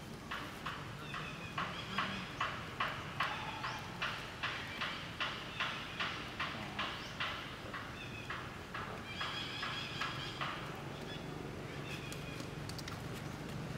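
An animal calling in a rapid, even series of short calls, about two or three a second, for some seven seconds, loudest about two seconds in. A higher, drawn-out call follows near the end.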